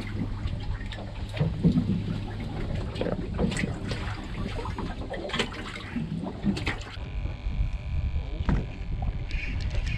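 Sea water lapping and splashing against a small fishing boat's hull, with scattered knocks and clicks from handling gear aboard. A faint, steady high whine comes in about seven seconds in.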